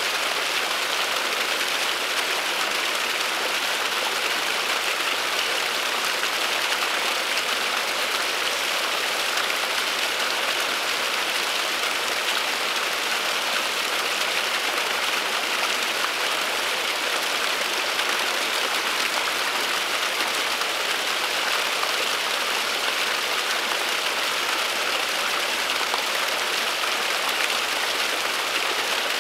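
Small waterfall splashing steadily: an even, bright rush of falling water that never breaks or changes.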